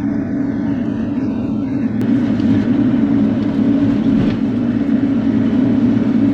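Bobcat E42 mini excavator's diesel engine running steadily under working load while digging, getting slightly louder about two seconds in.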